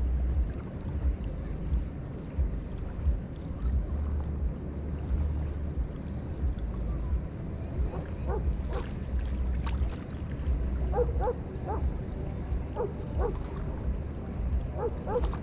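River water lapping and splashing at the shore, with wind buffeting the microphone in a steady low rumble. From about halfway, an animal gives short calls in small bursts of two or three.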